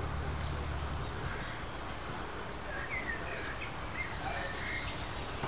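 Birds chirping outdoors over a steady hiss of background noise, with two short runs of quick high chirps and a few lower calls. A low rumble fades out in the first second.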